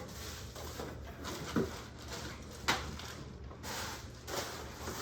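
Packaging and boxed items being handled and rustled, with a sharp click about two and a half seconds in.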